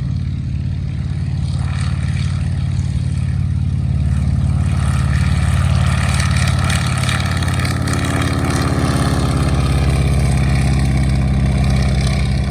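Stearman biplane's radial engine running with a deep, rapid pulsing beat, picking up and growing louder about four seconds in, then holding steady.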